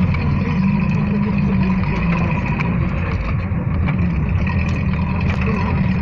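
Off-road jeep engine running as the vehicle drives over a rough dirt track, heard from on board, with a steady low rumble and scattered short rattles and knocks from the bouncing vehicle.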